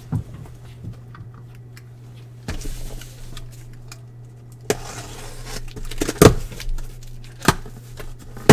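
Handling of trading-card boxes and packaging: rustling with several sharp knocks, the loudest a little past the middle, over a steady low hum.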